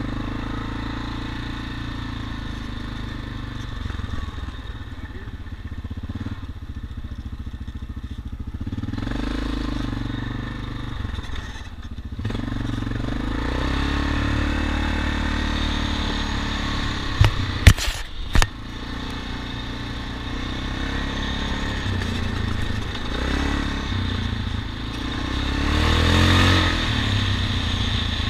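ATV engine running as the quad is ridden along a rough dirt trail, its pitch rising and falling with the throttle. A few sharp clattering knocks come about two-thirds of the way through.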